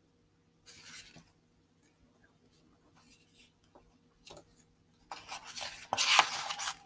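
Pages of a picture book being handled and turned: a brief paper rustle about a second in, a few light clicks, then louder rustling and rubbing of paper over the last two seconds.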